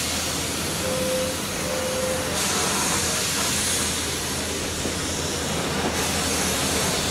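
Steam locomotive and train with a steady hiss of steam. The hiss grows stronger for a few seconds from about two and a half seconds in, then eases.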